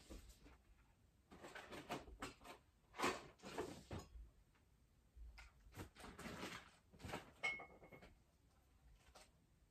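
Faint rustling, shuffling and small knocks of things being handled and moved about, in irregular bursts. There is one brief squeak about three-quarters of the way through.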